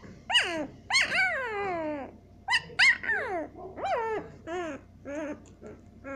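Week-old Siberian Husky puppy crying: a string of high whining cries that fall in pitch, the longest lasting about a second, followed by shorter, fainter whimpers toward the end.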